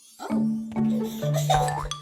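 Children's cartoon music with held low notes, over which a cartoon truck's wordless chirping voice sounds, rising in pitch near the end.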